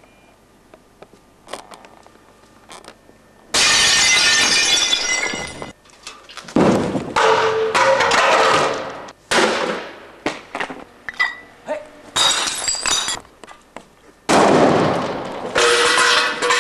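Loud crashing, breaking noises in five sudden bursts of a second or two each, after a few quiet seconds.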